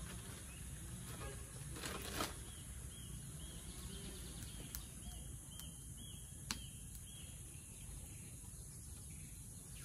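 Rural outdoor ambience: short high chirps repeating about twice a second over a steady high insect drone. A plastic bag crinkles briefly about two seconds in, and a few sharp clicks come through in the middle.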